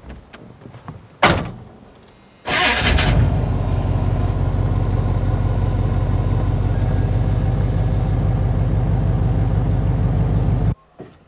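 A pickup truck's door slams shut. About a second later the engine cranks, catches and runs steadily, then cuts off suddenly near the end.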